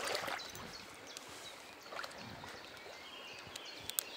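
Small river running, with a short splashing rush right at the start and a few light clicks, one sharper click near the end.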